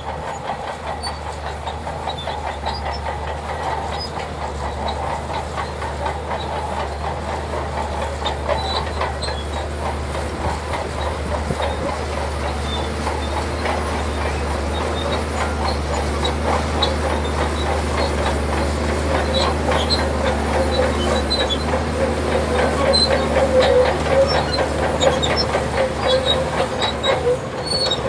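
Shantui DH17C2 crawler bulldozer working: a steady diesel engine hum under the clanking and squealing of its steel tracks, gradually growing louder.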